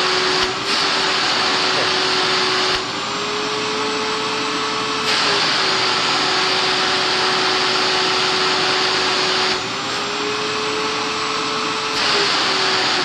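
Shop vac running at full suction. Twice its motor note rises a little while the rushing air grows quieter as the nozzle is sealed against skin, then it drops back when the nozzle is pulled away.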